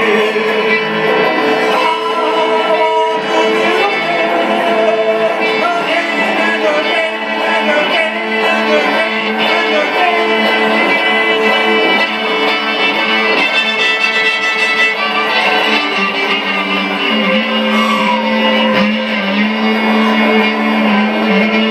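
Violin bowed in a lively fiddle solo, with guitar accompaniment underneath, in a live band performance.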